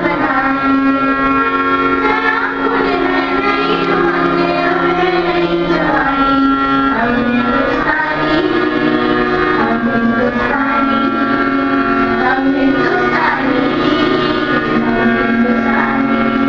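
Students singing a song in unison, with steady held accompanying notes sustained underneath.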